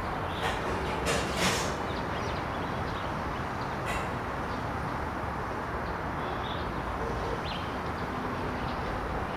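Steady background noise with a low rumble. A few brief sharp sounds come in the first two seconds and one more about four seconds in, with a couple of faint short chirps later.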